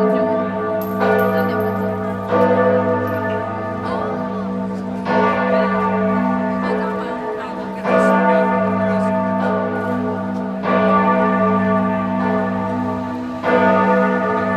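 Large church bell of Giotto's bell tower in Florence, tolling a slow, regular peal. There is a stroke about every three seconds, each ringing on over a deep, steady hum.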